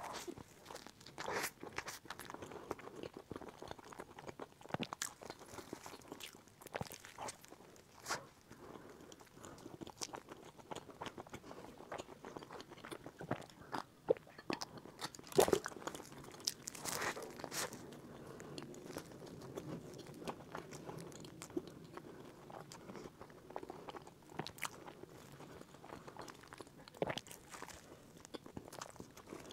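Close-up eating sounds: bites into a crisp, flaky pastry with repeated crunching and chewing, in irregular short crackles. Around the middle come a sip and swallow of a drink from a glass mug.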